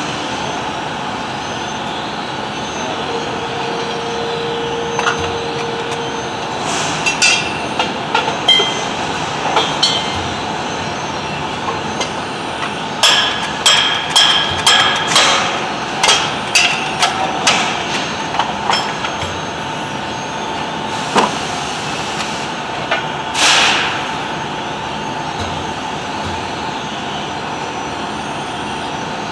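Steady hum of machine-shop machinery, with a run of sharp metal knocks and clinks in the middle, about two a second at their busiest.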